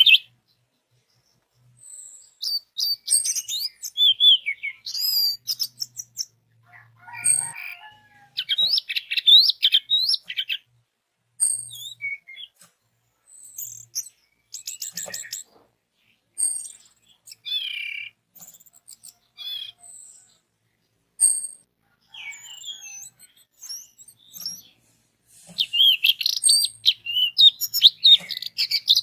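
Orange-headed thrush singing: a string of short, quick, high warbled and whistled phrases with brief pauses between them, becoming a denser run near the end.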